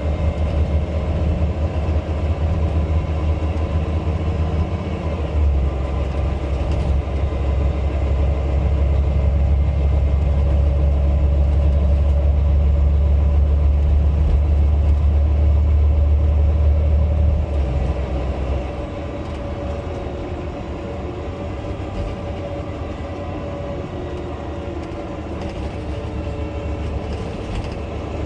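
Volvo B9 bus's six-cylinder diesel engine and drivetrain running on the move, a steady low rumble that is louder for a stretch and then drops off about eighteen seconds in as the bus eases off.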